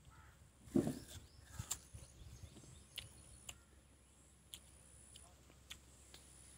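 Quiet outdoor ambience: a short louder sound about a second in, then scattered faint ticks and short chirps over a faint, steady high-pitched tone.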